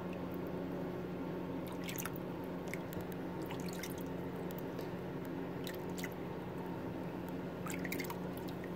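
Water in a shallow bathtub being scooped and poured by hand, with scattered drips and small splashes, several close together about 2 s in and again near the end, over a steady hum.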